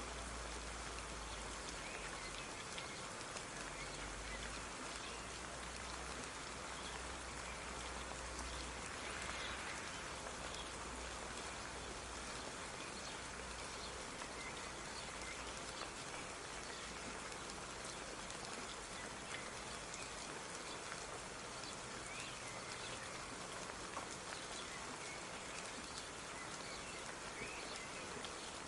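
Steady light rain falling, an even hiss with scattered soft drop patters.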